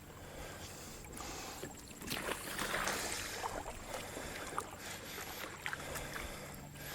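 Kayak paddle strokes splashing in creek water, with occasional knocks, getting louder from about two seconds in.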